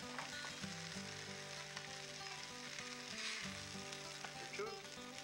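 Tandoori chicken pieces sizzling in a hot frying pan over a high gas flame, with a few light clicks of a fork against the pan as pieces are lifted out.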